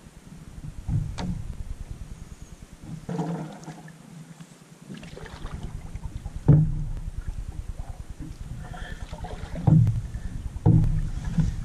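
Canoe being paddled on a calm lake: paddle strokes in the water every few seconds, over a low rumble of wind on the microphone.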